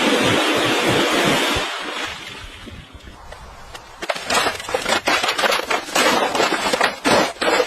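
A steady rushing noise that dies away after about two seconds, then a quick, irregular run of scraping or knocking strokes.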